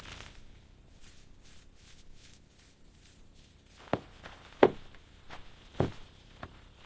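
A few irregular knocks, about six, the loudest three falling about four to six seconds in, over faint ticking.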